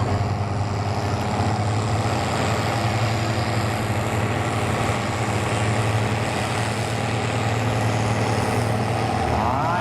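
Farm tractor engine running steadily at one low, unchanging pitch.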